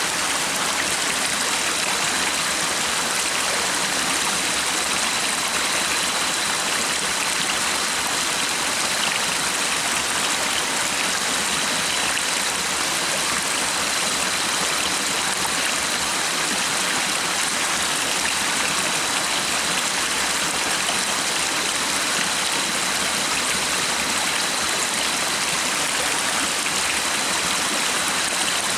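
Flowing stream rushing steadily, with a faint steady high tone held throughout.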